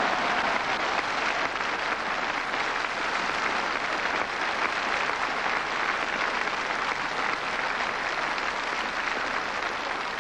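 Audience applauding steadily, easing a little near the end.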